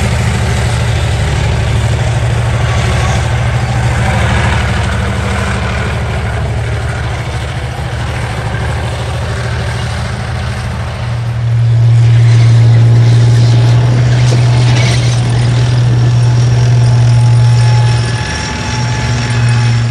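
Main battle tanks driving past on a dirt track, their engines running with a steady deep drone. The drone gets louder about halfway through, dips briefly near the end, and comes back.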